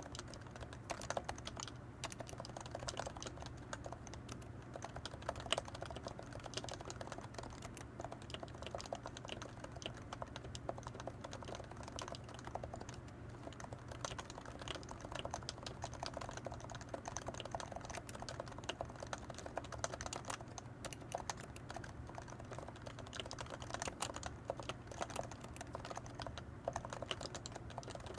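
Continuous typing on a Leopold FC660C Topre electrostatic capacitive keyboard with 45 g domes, unlubricated sliders and blank PBT keycaps: a steady stream of fast, irregular keystrokes.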